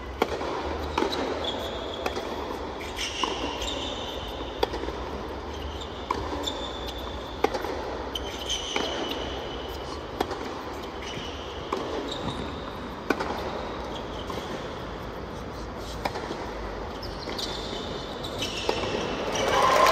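Tennis rally on a hard court: sharp racket-on-ball strikes about every one and a half seconds, starting with the serve, mixed with short squeaks of shoes on the court surface. Crowd applause swells near the end as the point finishes.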